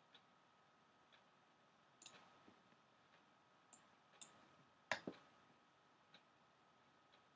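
Near silence with scattered soft clicks from the computer's pointing device as it is clicked, the loudest a quick double click about five seconds in. A faint steady high-pitched tone sits underneath.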